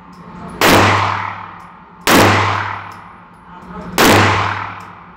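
Three gunshots fired on an indoor shooting range, about a second and a half to two seconds apart, each echoing and dying away slowly.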